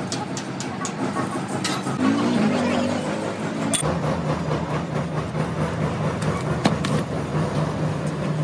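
An engine running steadily, with sharp metallic clicks and taps over it and a brief voice about two seconds in.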